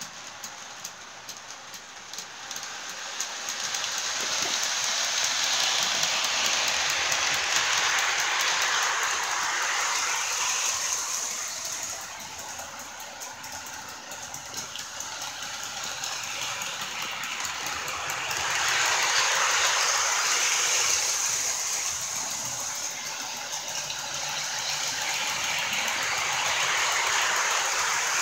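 Toy train running round a plastic oval track: a steady hissing whirr with rapid fine clicking, swelling louder and fading again several times as the train comes near and goes away.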